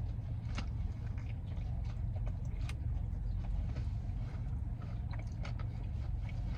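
A person chewing a bite of spicy fried-chicken wrap close to the microphone: scattered soft mouth clicks and crunches over a steady low hum.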